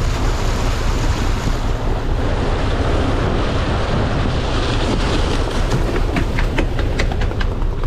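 Wind buffeting the microphone over the steady rush of foaming wake water behind a moving sportfishing boat. A quick run of sharp ticks comes near the end.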